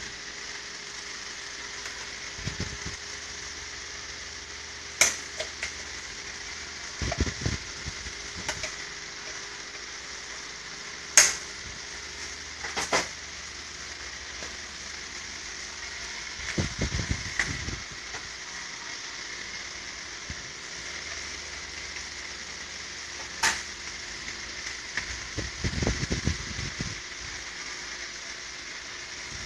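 Hands working inside a Riso duplicator's drum mechanism make sharp, scattered clicks and knocks of plastic and metal parts being fitted, about five of them. Between them come a few duller clusters of bumping and rustling, over a steady hiss.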